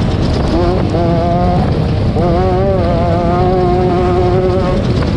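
Off-road race vehicle's engine buzzing at high revs, its note dropping away briefly and climbing back as the throttle comes off and on again, over a heavy rumble from the vehicle running over rough ground.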